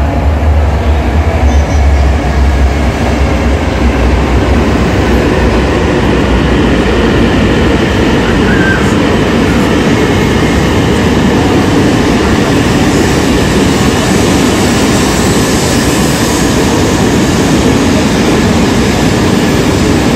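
E2 series shinkansen running in alongside the platform, a steady loud rush of wheels and air as the train pulls into the station, with a strong low rumble in the first few seconds.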